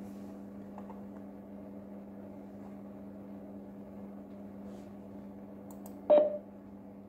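A steady low electrical hum. About six seconds in comes one brief, loud knock-like sound with a short ringing tone that dies away within half a second.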